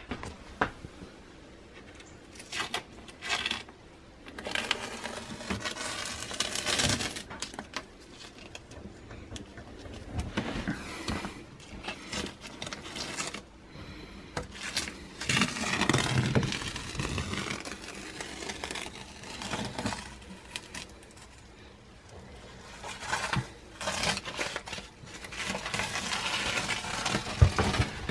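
Irregular scraping, knocking and clinking of wooden skirting board being handled and fitted against a wall, in uneven bursts with short quieter gaps.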